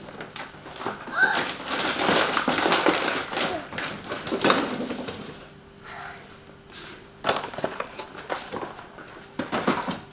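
Rustling of packaging and light clicks and knocks of kitchen items being handled, busiest in the first half, with a faint steady hum in the second half.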